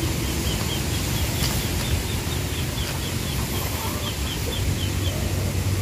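Wind rumbling on the microphone, with a bird's short high chirps repeated rapidly, about five a second, in two runs.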